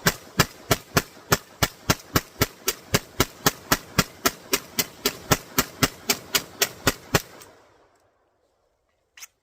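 3D-printed MAC11-style 9mm pistol fired at a steady rapid pace, about four shots a second for some seven seconds, then stopping suddenly. A faint click follows near the end.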